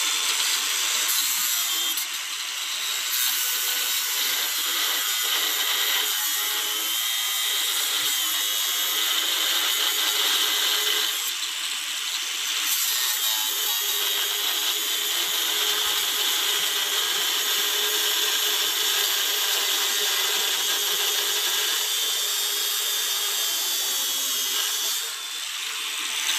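DeWalt DCG405FN cordless angle grinder cutting under load, a steady grinding noise with a high whine that sags briefly a couple of times as the disc bites. It is cutting rather slowly.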